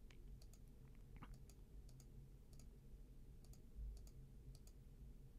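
Faint computer mouse clicks, about two or three a second and unevenly spaced, placing the points of a shape mask one by one, over a low steady hum. A soft low thump about four seconds in.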